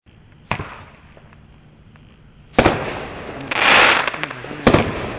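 A 25-shot consumer fireworks cake firing: a thump about half a second in, then two sharp bangs with about a second of dense crackling between them.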